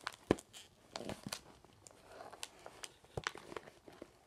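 Nerf blaster packaging being pulled at, crinkling and tearing in irregular crackles and clicks, with one sharper snap about a third of a second in.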